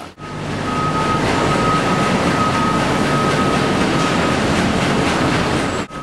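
Forklift truck running as it lifts a pack of sawn timber off a chain conveyor, in loud, steady sawmill machinery noise. A steady high whine fades about four seconds in. The noise starts and stops abruptly.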